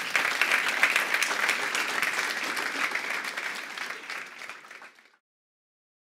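Audience applauding: dense clapping from many hands that dies down and cuts off abruptly about five seconds in.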